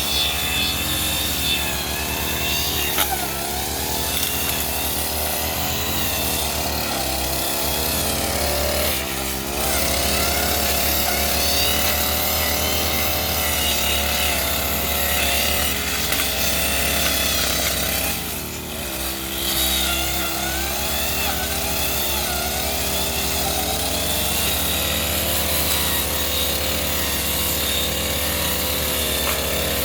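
Brush cutter engine running at high revs while cutting grass, its pitch dipping briefly and recovering twice: about a third of the way in and again a little past the middle.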